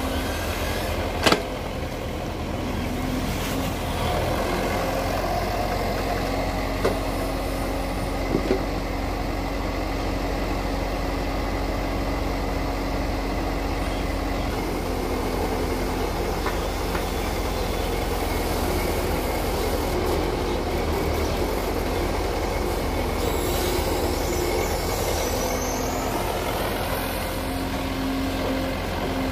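Hydraulic tracked excavator working mud: the diesel engine runs steadily under load with a constant hydraulic whine. One sharp metallic clank comes about a second in, and a few fainter knocks follow.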